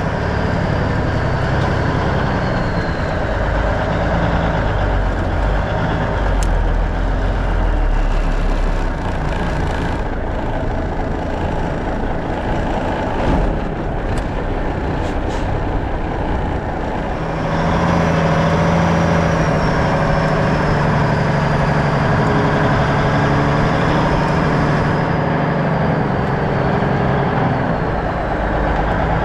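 A 1984 Freightliner cab-over truck's Cummins diesel engine running under way. The engine sound eases off for several seconds in the middle, then comes back stronger and steady for the rest.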